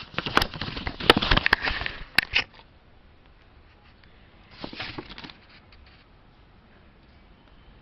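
Close handling noise: quick rustles, taps and clicks for the first two and a half seconds, then quiet, with another short burst of rustling about five seconds in.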